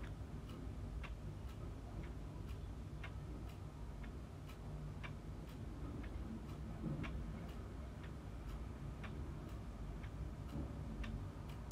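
Regular ticking, about two ticks a second, over a steady low hum.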